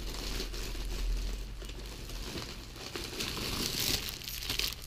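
A plastic bag crinkling and rustling as it is handled, loudest from about three seconds in.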